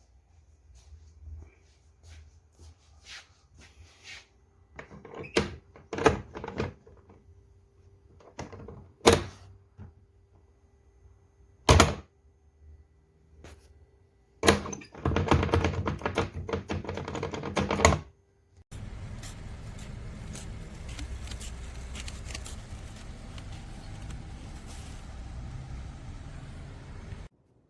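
Knocks, clicks and several sharp thunks of hands working the hard plastic shell and mounting hardware of a rooftop cargo carrier, with a rattling stretch of about three seconds around the middle, then a steady even noise for about eight seconds that cuts off suddenly.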